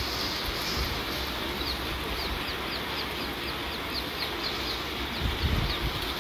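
Steady rain falling, with a bird chirping over it in a quick run of short, high, falling notes, about three a second.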